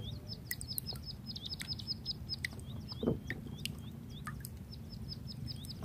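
A small bird chirping rapidly: a long string of short, high, hooked notes, several a second, with a faint low hum beneath. A brief low sound stands out about three seconds in.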